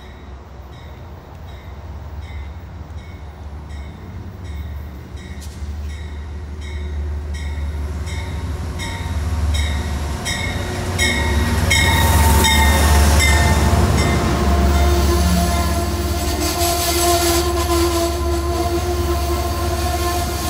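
Amtrak passenger train rolling and picking up speed, with a low rumble and wheels clicking over rail joints, the clicks coming faster and louder. From about halfway a sustained tone of several pitches joins and holds.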